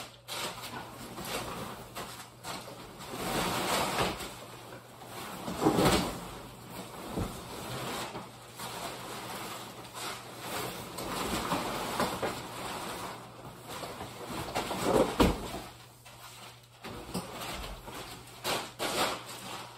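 The insulated fabric of a hub-style ice shelter rustling and swishing as its walls are pulled out and set up, with sharp thumps about six seconds in and about fifteen seconds in, and a few smaller knocks near the end.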